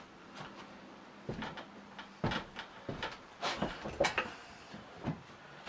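Scattered knocks, clicks and rustling from a man settling into an office chair at a wooden workbench and handling things, about half a dozen separate bumps.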